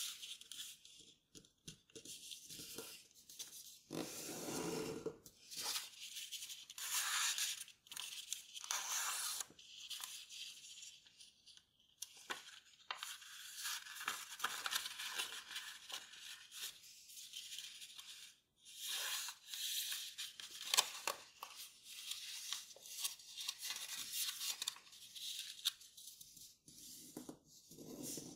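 A square sheet of kraft paper being folded by hand into origami: irregular rustling and crinkling in short uneven bursts as the paper is lifted, turned and creased flat.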